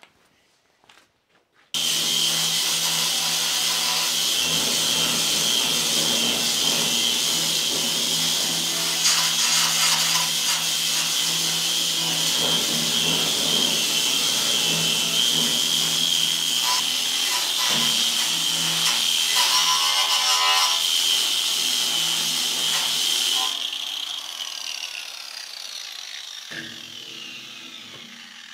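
Angle grinder with a wire brush scouring rust and dirt off a steel shop cart: a loud, steady high whine over harsh scrubbing that starts suddenly about two seconds in. Near the end the motor winds down with a falling whine, and there is a single knock.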